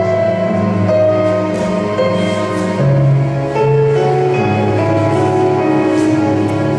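Instrumental music playing, held notes changing every second or so.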